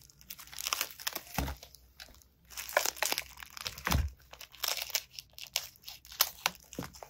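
Plastic bubble wrap crinkling and scraping as it is handled and cut open with a cutter blade. A dull knock about four seconds in.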